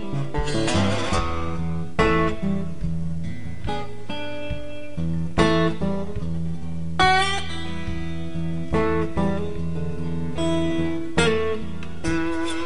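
Soundtrack music: an acoustic guitar playing slow plucked and strummed chords, a new chord every second or two.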